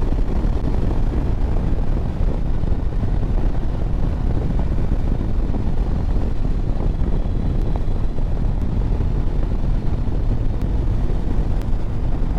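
Steady wind rush buffeting the microphone on a 2024 Harley-Davidson Road Glide moving at road speed, with the motorcycle's running drone underneath.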